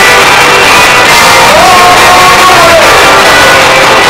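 Live rock band playing very loud: electric bass and electric guitar, with a voice holding a sung note in the middle.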